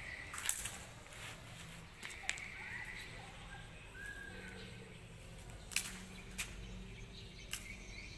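A few faint short chirps over a quiet background, with about five sharp clicks or snaps scattered through.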